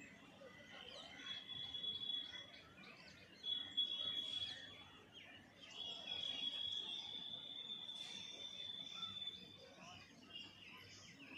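Faint outdoor ambience with birds chirping, and a thin high-pitched steady whistle that comes and goes three times, the longest holding about four seconds.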